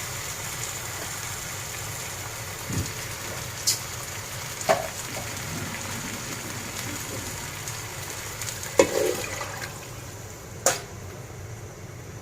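Beef, rice and lentils in a hot pot sizzling with a steady hiss, with a few sharp knocks of a spoon against the pot; the hiss drops away about ten seconds in.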